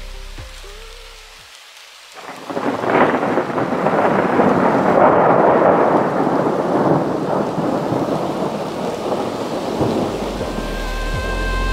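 Heavy rain falling, a dense steady hiss that comes in suddenly about two seconds in, after background music fades out. The music comes back near the end.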